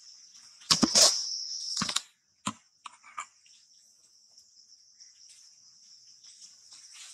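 Steady high-pitched insect chorus, with a cluster of loud knocks and rustles about a second in and two fainter ones shortly after.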